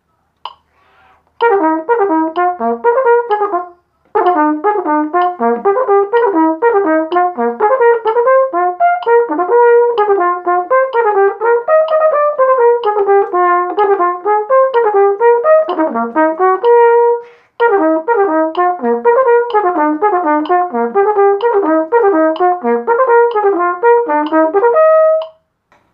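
Solo flugelhorn playing a practice exercise of quick, separately tongued notes in running passages. There are two short pauses for breath, and it ends on a held note.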